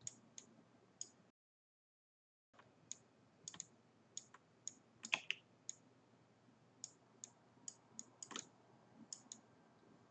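Irregular, sharp clicks of a computer mouse, a couple a second, over faint hiss. The sound drops out to dead silence for about a second shortly after the start.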